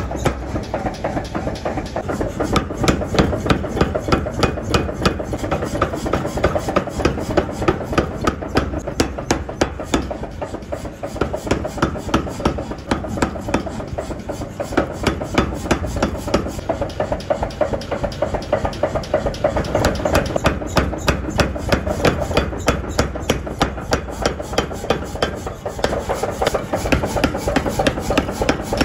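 Mechanical power hammer pounding a red-hot steel axe blank on its die, with rapid, even blows several times a second and a steady low machine rumble beneath.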